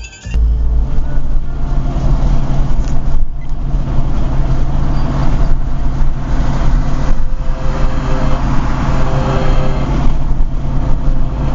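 Ford Mustang GT's V8 running, a loud steady low rumble.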